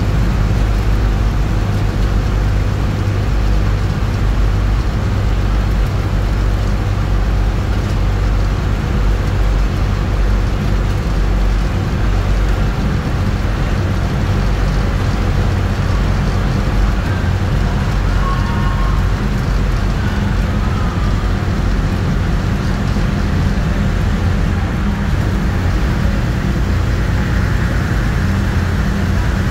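Steady low rumble of a road vehicle driving at a constant speed: engine and tyre noise heard from the moving vehicle.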